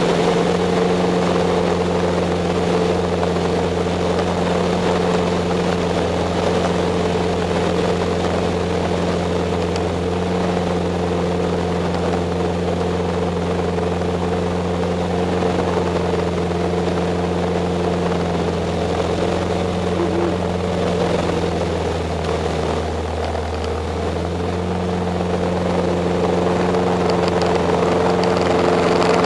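Van's RV-8 light aircraft's piston engine and propeller running steadily at power, heard from inside the cockpit. Near the end the engine note drops for a couple of seconds, then rises again.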